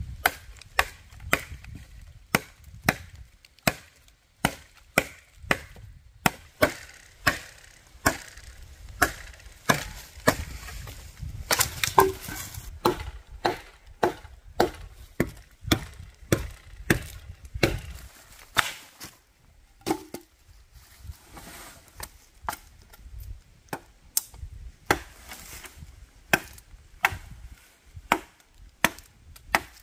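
Machete chopping into a wooden branch: a steady run of sharp blows, about two a second.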